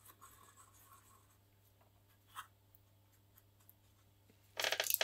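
Faint scratchy rubbing of abrasive paper worked by hand over a small repair block, with a short sharper scrape about halfway through and a louder burst of noise near the end.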